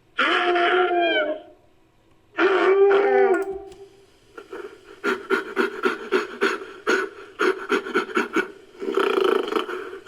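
Giant-baboon (Dinopithecus) creature sound effects: two drawn-out calls whose pitch bends, then a rapid run of short grunting barks, about four a second, and a longer call near the end.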